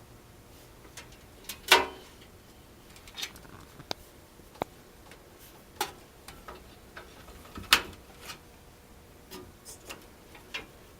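Scattered clicks and light knocks of cables and connectors being handled and plugged in inside a desktop computer case, with two louder knocks about two seconds and eight seconds in.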